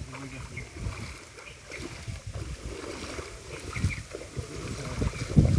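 River water sloshing and splashing around people wading with a fishing net, with a louder splash near the end.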